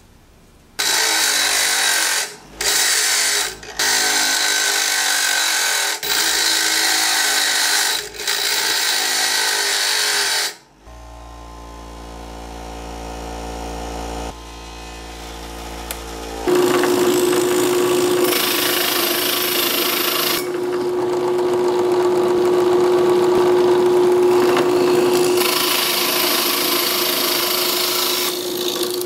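Steel being ground on a bench grinder in several loud passes with short breaks, then the grinder running with a quieter steady hum. About halfway through, a drill press starts boring into wood with a hole saw: a steady whine over continuous cutting noise.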